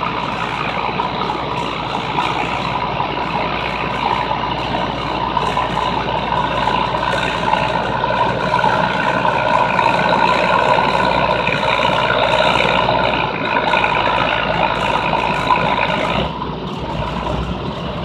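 Case 500 tractor's six-cylinder diesel engine running hard under load while pulling a weight-transfer sled, growing louder toward the middle. Its sound drops suddenly near the end.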